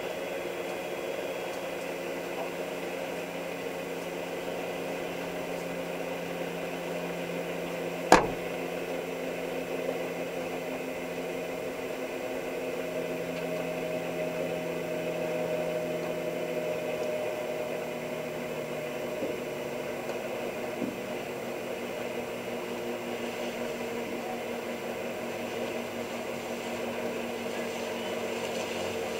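De Havilland Turbo Otter floatplane's turboprop engine running steadily as the plane taxis, a constant whine and hum with several steady tones. One sharp click stands out about eight seconds in.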